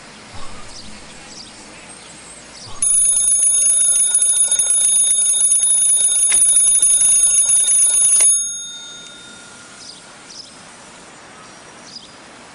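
A mechanical bell rings continuously for about five and a half seconds, starting about three seconds in, then cuts off abruptly.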